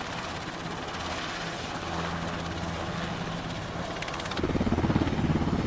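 Helicopter rotor and turbine sound: a steady whooshing hiss over a low hum, swelling about four and a half seconds in into a louder, fast rotor chop.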